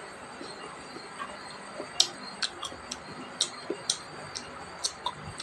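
Close-miked eating of rice and bamboo-shoot salad: a string of sharp, irregular wet clicks and smacks from chewing, starting about two seconds in.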